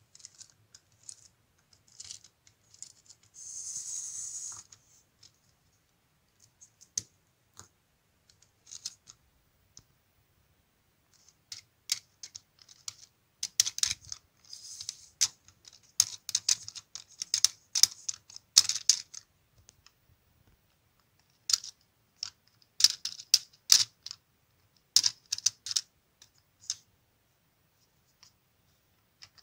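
Sharp plastic clicks and light rattles in irregular runs as the gears and driving ring of a LEGO Technic gearbox are moved by hand. There is a short hiss about four seconds in.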